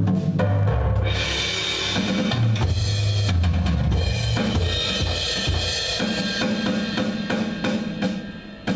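Roland electronic drum kit played through its sound module: bass drum and snare hits with a cymbal wash setting in about a second in, over a backing track with a bass line.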